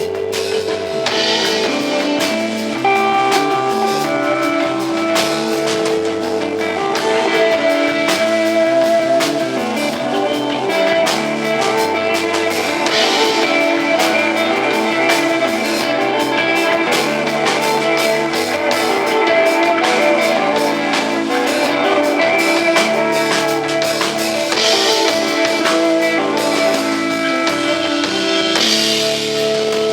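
Instrumental rock band playing live: sustained electric guitar over a drum kit, with cymbal washes swelling every so often.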